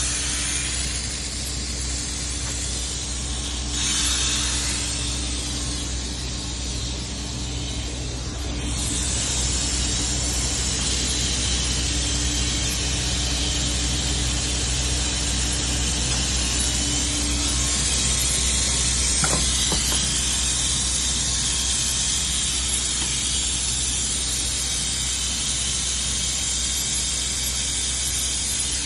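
Steady hiss of escaping gas over a low, even machine hum; the hiss grows louder between about four and eight seconds in.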